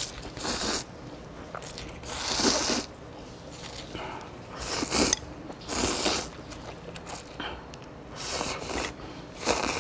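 A person slurping hot pot glass noodles in short noisy slurps every second or two, about six in all.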